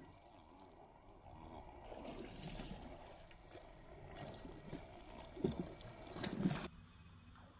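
Faint handling noise from a baitcasting reel and rod being worked while a lure is retrieved through shallow water, with a couple of soft knocks in the second half.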